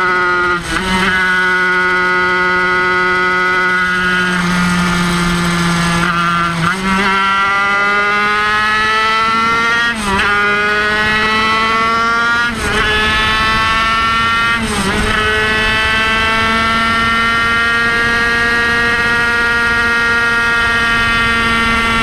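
Kreidler Van Veen 50cc racing motorcycle's two-stroke single-cylinder engine running at high revs, around 13,000–14,000 rpm, heard from on board. Its pitch climbs slowly and is broken about five times by a brief dip and jump at the gear changes.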